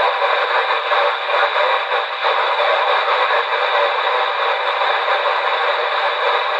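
CB radio receiver on channel 19 of the 27 MHz band putting out a steady, loud hiss of band noise with the squelch open, between transmissions.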